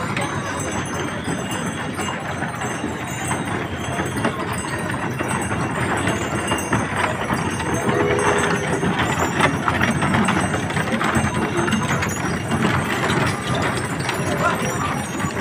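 Ox-cart procession passing: oxen's hooves clopping and solid wooden wheels of the carts rolling and rattling, a dense run of small knocks, with people's voices mixed in.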